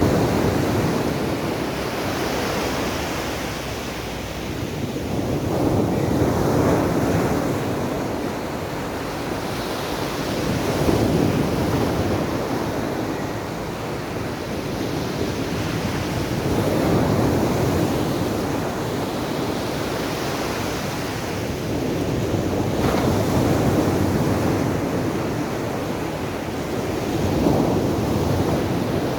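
Large sea waves breaking on the shore: a rushing surf noise that swells and ebbs every five or six seconds, with wind buffeting the microphone.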